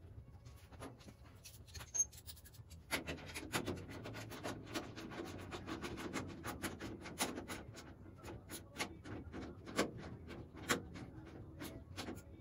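Small hand tool working buttonhead Allen bolts on a steel door sill reinforcement bracket: a faint, irregular run of light metal clicks and scrapes that picks up about three seconds in.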